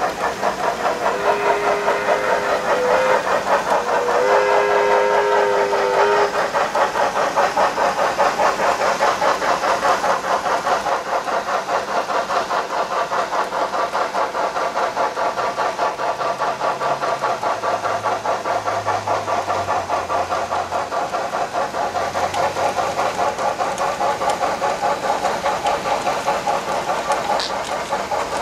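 Sound system of an HO-scale Trix H6 Mikado steam locomotive model playing steady rhythmic exhaust chuffs and two two-note whistle blasts in the first six seconds, as the locomotive pulls a train of tank cars.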